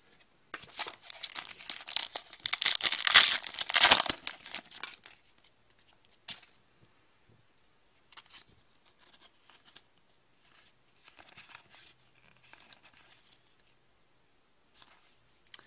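A foil hockey-card pack being torn open and its wrapper crinkled, loudest about two to four seconds in. After that come only faint, scattered rustles and clicks as the cards are thumbed through one by one.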